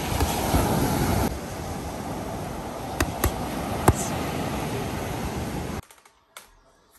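Waves washing on a beach, a steady rushing noise, with sharp slaps of punches landing on boxing focus mitts, three of them about three to four seconds in. The surf noise cuts off abruptly near the end.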